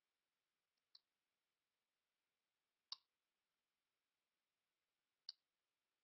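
Near silence broken by three faint, single clicks, about a second, three seconds and five seconds in, the middle one the loudest.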